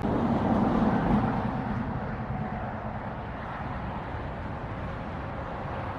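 Outdoor road traffic noise: a vehicle passes, its sound fading over the first couple of seconds, then a steady hum of traffic.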